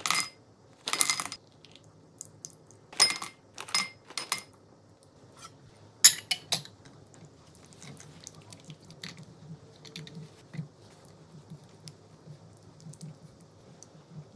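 Chocolate discs clinking sharply as they drop into a glass bowl, about six clinks in the first six or seven seconds. Then a silicone spatula stirs chocolate ganache in a glass bowl, making soft, wet scraping and squishing sounds.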